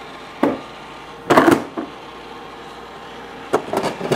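Koolatron mini vending fridge dispensing a soda can. A click about half a second in, then a loud clunk and rattle about a second later as the turning rack flips the can down into the tray. Clicks and rattles near the end as the clear tray flap is pushed open and the can is taken out.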